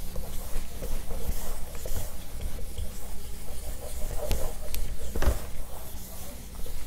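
Whiteboard eraser rubbed back and forth across a whiteboard to wipe it clean, an uneven rubbing swish with a few sharp knocks about four to five seconds in.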